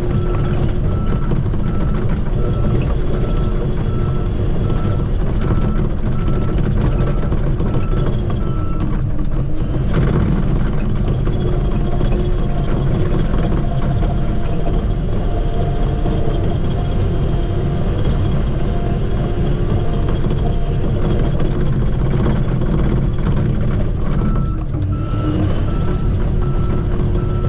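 Shantui bulldozer's diesel engine running under load, with its reversing alarm beeping steadily for the first nine seconds and again near the end as the machine backs up.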